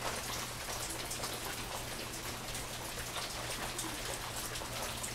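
Steady rain falling, an even hiss scattered with many small drop ticks, over a faint low hum.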